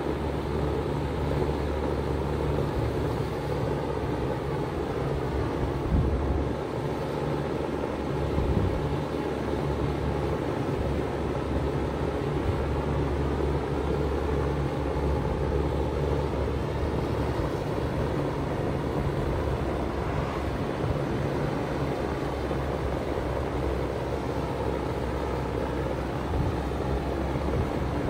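A 3-ton Bard wall-mounted heat pump running steadily in cooling mode: a constant low hum from the compressor, with the fan blowing through the unit.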